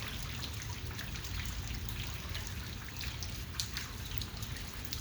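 Water falling in drops and trickling: a steady hiss with many small scattered drip ticks over a low rumble.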